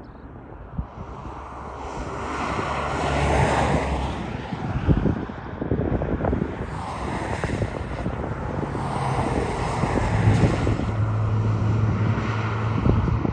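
BNSF diesel locomotives passing at the head of a double-stack container train: a loud engine rumble with a steady low hum that builds over the first few seconds, mixed with the rolling rumble of the train and a few sharp knocks.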